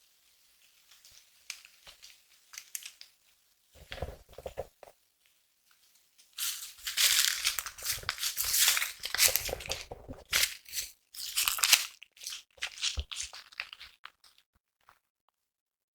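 Irregular crunching, crackling and tearing, loudest and densest for several seconds in the middle, then thinning out into scattered crackles.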